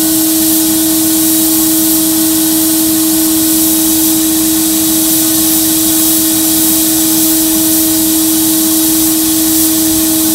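Glass bead blast cabinet in use: the blast gun gives a steady hiss of compressed air and glass beads as it strips paint off a metal panel, over the steady hum of the cabinet's dust-collection vacuum.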